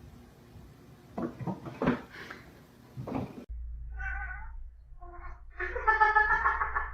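A few brief scuffling knocks, then a cat meowing: two short meows followed by a longer, drawn-out yowl near the end.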